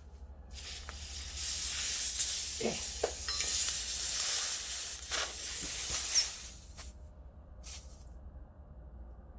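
Compressed air hissing out of a punctured tire through the plug hole, in loud uneven spurts, with a few short squeaks as the plug tool works in the hole; the hiss stops about six and a half seconds in.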